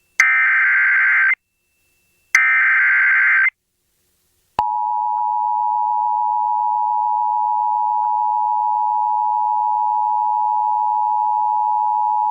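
Emergency Alert System broadcast alert. First come two short bursts of the SAME digital header, a harsh buzzing data screech about a second long each, with a second's gap between them. Then, a little over four seconds in, the steady two-tone EAS attention signal (853 and 960 Hz) begins and holds. It announces a tornado warning.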